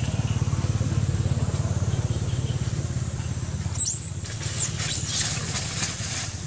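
A steady low hum underneath; about four seconds in, a sudden shrill high-pitched squeal that holds briefly and then drops away, followed by quick crackling of dry leaves as macaques scramble across the leaf litter.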